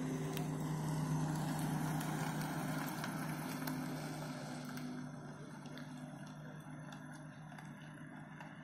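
A small van's engine and tyres passing close by on tarmac and driving away, a steady hum with rushing noise that is loudest in the first two or three seconds and fades from about five seconds in.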